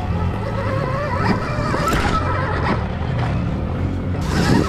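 Stark Varg electric dirt bike's motor whining, its pitch wandering up and down with the throttle, over a low wind rumble on the helmet camera. The wheels knock over rocks about two seconds in and again near the end.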